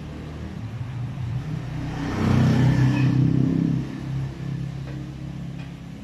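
A motor vehicle passing close by: its engine sound swells to its loudest about two to three seconds in, then fades away.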